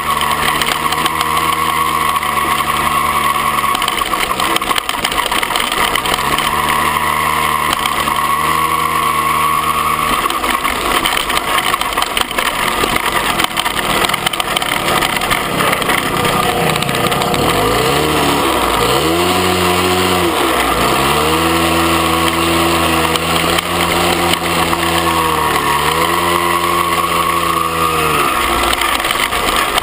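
Dirt bike engine running under throttle on an off-road trail. Its note dips and climbs back a few times as the throttle is eased and reopened, over a steady rush of wind and rattle.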